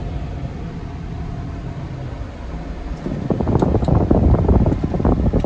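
Low rumble inside a running car, with wind buffeting on the microphone. It grows louder and rougher about three seconds in.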